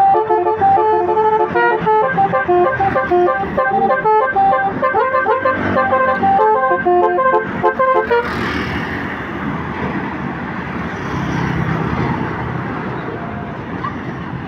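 A plucked-string melody plays for about eight seconds and then cuts off suddenly, giving way to steady road traffic noise from passing vehicles.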